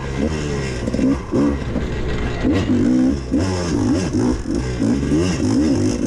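Dirt bike engine revving up and down with constant throttle changes as it is raced along a rough wooded trail, heard from on the bike. The pitch rises and falls over and over.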